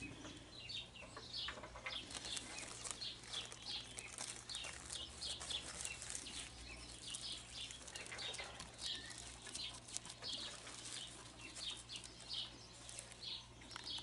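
Small birds chirping: many short, high calls repeating several times a second, fairly faint.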